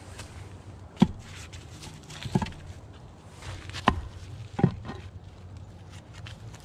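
Concrete slabs set down and knocked against one another as they are stood on edge. There are four dull knocks over about four seconds, and the first, about a second in, is the sharpest.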